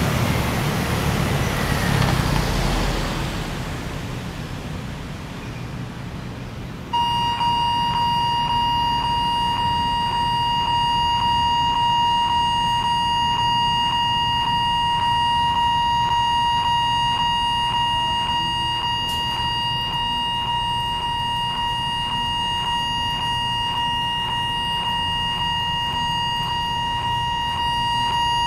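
Level-crossing warning signal switching on about a quarter of the way in and ringing steadily, a high electronic bell tone pulsing about twice a second: the warning that a train is approaching. Before it, a vehicle's noise fades away.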